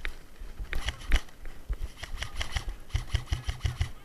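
Airsoft gun firing close by in quick bursts, a rapid series of sharp clicks and thuds at about six or seven shots a second near the end.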